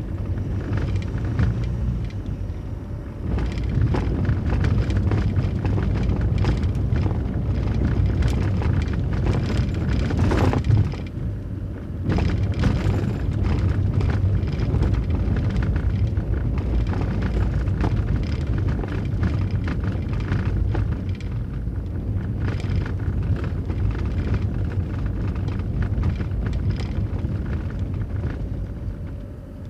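Car driving over a cobblestone street, heard from inside the cabin: a steady low rumble of the tyres on the stones with a dense rattle of small clicks.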